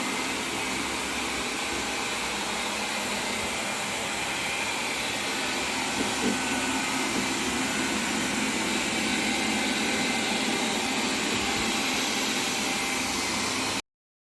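Xiaomi Mi Robot Vacuum-Mop Pro running: a steady hiss with faint steady tones. A couple of small knocks come about six seconds in, and the sound stops abruptly near the end.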